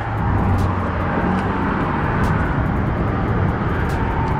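Steady road-traffic rumble from vehicles passing, with a few faint ticks over it.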